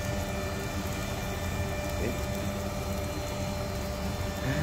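Steady low hum of a tabletop grill's smoke extractor fan, with lamb ribs and other food sizzling on the grate.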